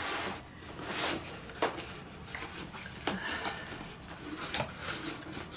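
Cardboard packaging rubbing and scraping as a boxed coffee maker is worked out of its box, with three light knocks.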